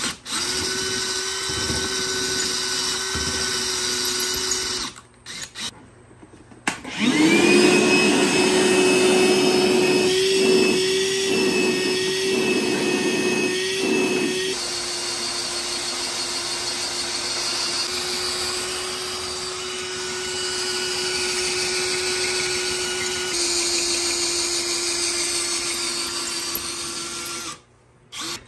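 A cordless drill runs for a few seconds, boring a mounting hole through the ATV rack tubing. After a short pause a cordless shop vacuum spins up and runs steadily for about twenty seconds, sucking up the drill shavings. It eases a little about halfway through and cuts off near the end.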